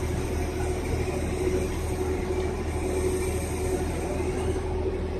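Mobile crane's diesel engine running steadily: a low drone with a steady whine over it.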